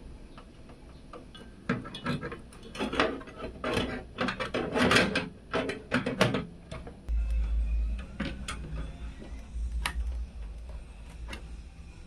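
Irregular clicks, taps and clatter of computer parts being handled and fitted into a PC case, busiest through the first half, with a short low rumble a little past the middle.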